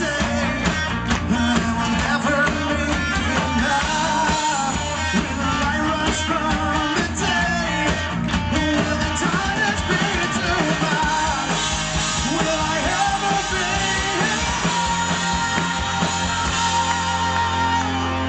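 Live rock band playing, with a male lead vocalist singing into the microphone over electric guitar and band.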